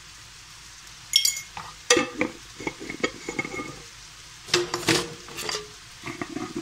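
Frying onions and chickpeas stirred in a wok: several irregular bouts of the utensil scraping and clattering against the pan over a faint steady sizzle.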